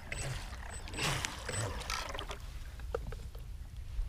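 Scattered clicks and knocks of handling, with a short rushing splash about a second in, as a stalled RC jet boat, its motor cut out by the low-voltage cutoff, is reached for and lifted out of the water. No motor is running.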